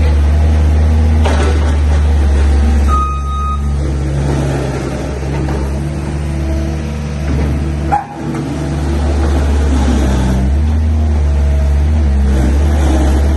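Mini loader engine running under load after an engine overhaul, its level and pitch shifting as the load changes, with a brief sharp dip about eight seconds in. A short high beep sounds about three seconds in.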